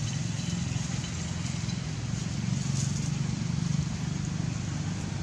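Steady low mechanical hum over constant background noise, unchanging throughout.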